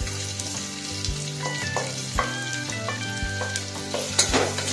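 Sliced onions sizzling as they drop into hot oil in a pressure cooker, then stirred with a spatula, which knocks against the pot now and then.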